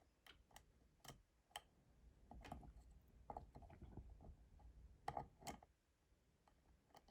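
Faint, irregular clicks of a pick working the pins of a BTV dimple cylinder lock held under tension.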